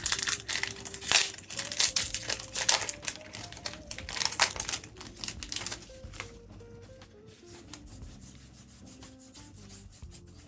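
Trading cards sliding and rubbing against one another as a pack is flipped through: a quick run of dry scrapes for the first six seconds or so, then quieter, over soft background music.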